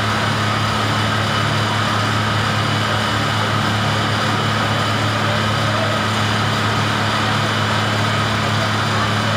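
A steady engine running at constant speed, giving an unchanging hum over a wash of noise.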